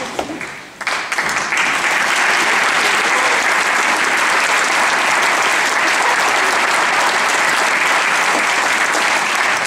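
Concert-hall audience applauding; the clapping dips briefly about half a second in, then carries on steadily.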